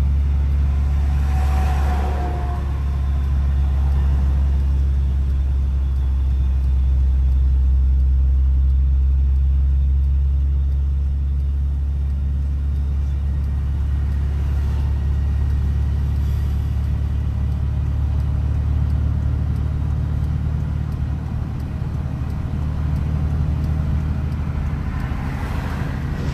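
Farm sprayer's engine running steadily on the road, a loud, even low drone.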